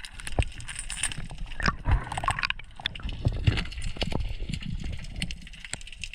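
Irregular clicks and knocks, several a second, over a low rumble.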